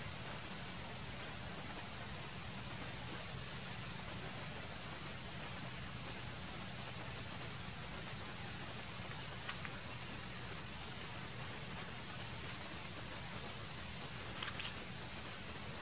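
Insects singing in a steady chorus, one continuous high-pitched buzz, with a couple of faint clicks about nine and a half and fourteen and a half seconds in.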